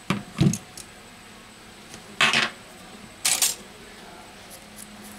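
Tweezers and small phone parts clicking and knocking against each other several times near the start. Then two short swishes of a toothbrush scrubbing dirt off a small metal phone part.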